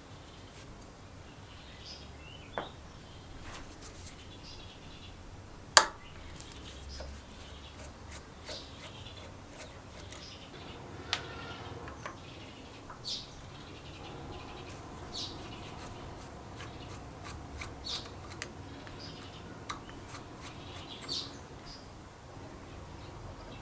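Small workbench handling sounds: scattered light clicks, scrapes and short high squeaks of tools and small parts, with one sharp click about six seconds in.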